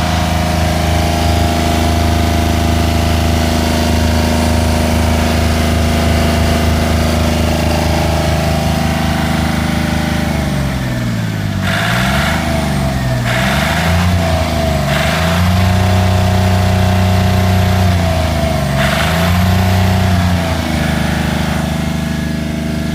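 Volvo Penta marine diesel engine running at a steady speed, then, from about halfway, its note repeatedly drops and climbs back as the revs change, with several short bursts of rushing noise.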